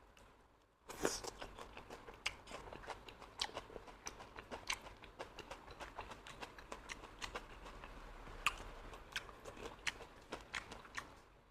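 A person chewing and biting stuffed apple snail close to the microphone, with many small sharp clicks and crunches starting about a second in.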